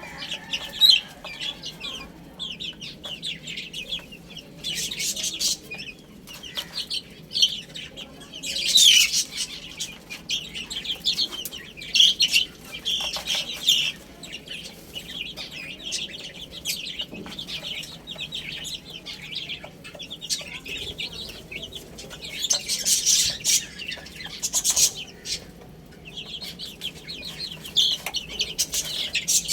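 A group of baby chicks chirping in many rapid, overlapping high peeps, in louder clusters several times.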